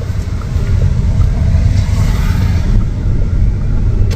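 Low road rumble inside a moving car's cabin.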